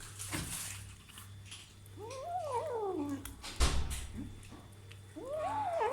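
Kitten giving two long, rising-and-falling yowls while eating meat, with a sharp knock between them.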